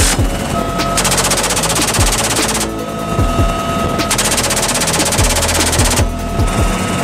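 M134 Minigun, a six-barrel 7.62 mm rotary machine gun, firing two long bursts of very rapid fire, each about two seconds, with a short pause between.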